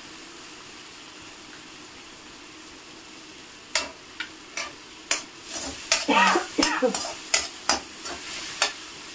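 Tomato masala frying in oil in a steel kadai, a steady low sizzle. From about four seconds in, a metal spatula stirs it, knocking and scraping against the pan in a run of sharp clicks.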